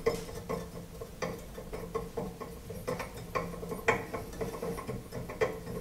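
A kitchen range hood's sirocco fan handled by hand as its centre knob is gripped and turned: a run of light, irregular clicks and taps, over a faint steady hum.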